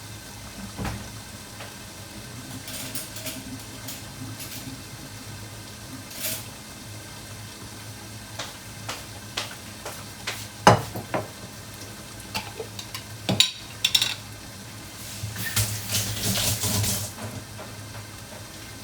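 Kitchen clatter of dishes, pots and utensils: scattered knocks and clinks, one loud knock a little past halfway, a cluster of them soon after, and a denser stretch of clattering near the end, all over a steady low hum.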